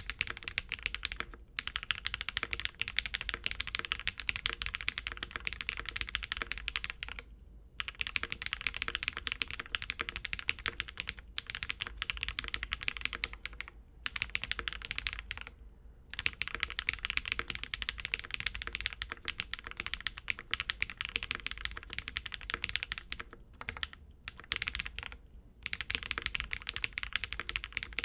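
Fast, continuous typing on a Mode 65 mechanical keyboard with a brass plate, lubed KTT HaluHalo linear switches and GMK keycaps: dense high-pitched key clacks in runs of several seconds, with brief pauses between them.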